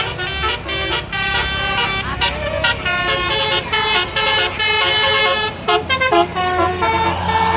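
Tour bus's Basuri telolet horn playing a tune of short stepped notes, with brief gaps between phrases. Near the end the tune thins out and a low engine rumble grows.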